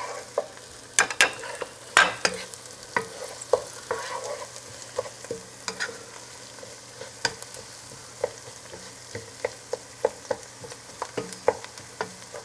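Wooden spatula stirring diced onion sautéing in a saucepan: repeated light knocks and scrapes against the pan over a faint frying sizzle.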